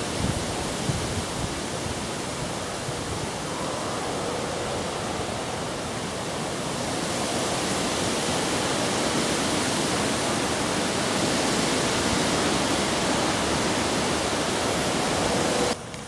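Steady rushing noise of a river running high in flood, mixed with wind through the bankside reeds and trees. It cuts off suddenly near the end.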